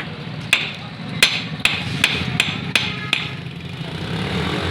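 Seven sharp hammer blows in a row, about two or three a second, over a steady low traffic hum.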